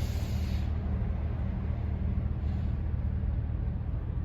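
An engine running steadily, a low even hum, with a short hiss in the first half-second.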